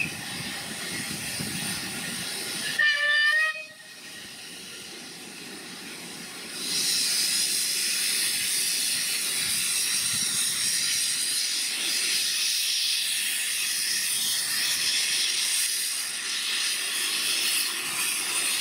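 Bagnall saddle-tank steam locomotive giving one short whistle blast about three seconds in, then a loud, steady hiss of escaping steam that starts about seven seconds in.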